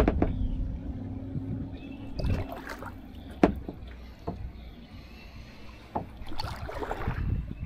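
Kayak paddling on a river: paddle strokes splashing in the water, with a few sharp knocks, the loudest about three and a half seconds in.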